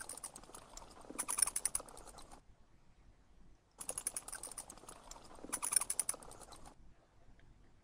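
Recorded bat calls: a rapid series of high-pitched chirps and clicks, played as two runs of about three seconds each with a short pause between.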